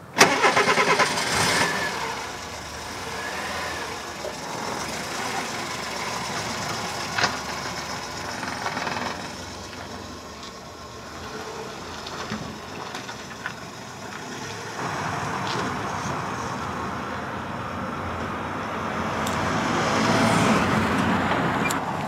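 A car engine starting, with a short rapid pulsing as it catches, then running steadily; it grows louder near the end.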